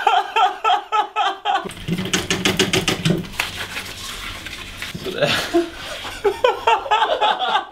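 A man laughing in a run of short, quick bursts, then laughing again about five seconds in.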